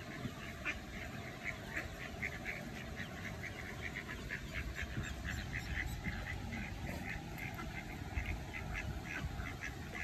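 Mallard ducklings peeping: many short, high calls, several a second.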